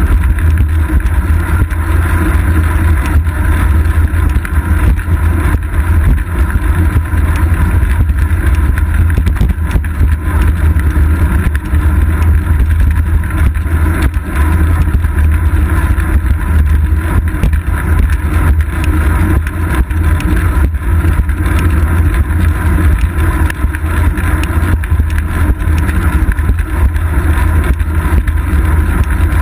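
Steady low rumble of wind and road vibration picked up by a seat-post-mounted GoPro Hero 2 on a moving bicycle, with scattered small knocks from the road surface.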